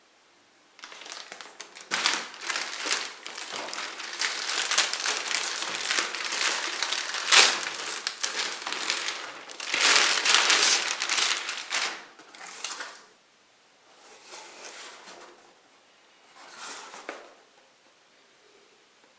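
Packaging being unwrapped by hand: plastic wrapping crinkling and crackling for about twelve seconds, then two short bursts of crinkling near the end.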